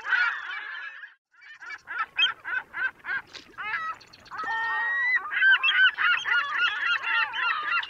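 Geese honking over and over, many short calls in quick succession. The calls are sparse at first and crowd together from about halfway.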